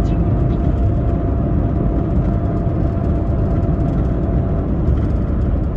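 Steady low rumble of tyre and engine noise heard from inside a moving car, with a faint steady whine that stops about four and a half seconds in.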